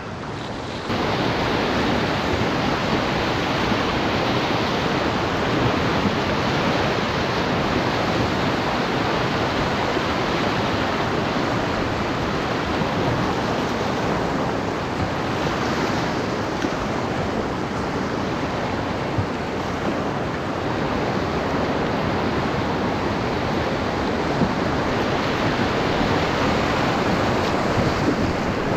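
Whitewater rapids rushing steadily around a canoe as it runs them. The sound comes in abruptly about a second in.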